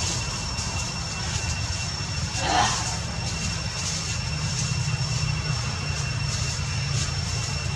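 Steady low rumble with a thin, steady high-pitched whine over it, and one short rushing sound about two and a half seconds in.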